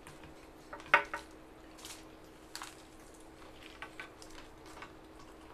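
Eating sounds from several people eating with their hands: scattered small clicks, smacks and squishes of food being picked up and chewed, with one sharper click about a second in, over a faint steady hum.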